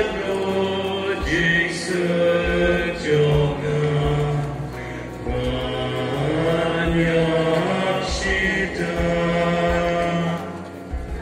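A group of voices singing a slow hymn, with long held notes.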